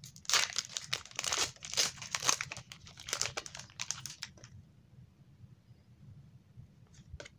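Foil Pokémon trading card booster pack being torn open and crinkled in the hands: a run of crackling rips over roughly the first four seconds, then a single short click near the end.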